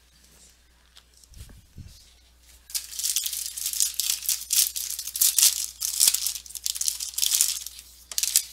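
Foil wrapper of a trading-card pack being torn open and crinkled by hand, a dense crackling that starts about three seconds in and runs for several seconds. A low bump comes just before it.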